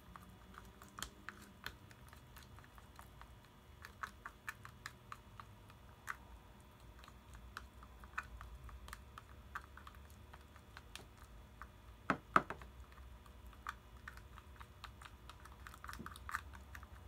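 Runny slime being stirred fast in a small plastic jar: irregular light clicks and taps of the spatula against the jar, with two louder knocks about twelve seconds in. This is the mixing just after the borate activator goes in, before the slime thickens.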